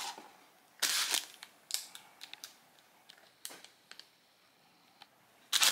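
Plastic sterile packs of disposable syringes crinkling and rustling as they are handled on a table, in several short bursts with quiet gaps between.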